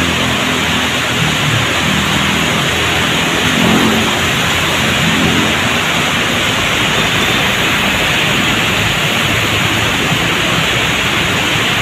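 Heavy rain pouring and floodwater rushing across a flooded road, making a steady, dense, loud hiss. A low engine hum of a passing motorbike or traffic comes through now and then.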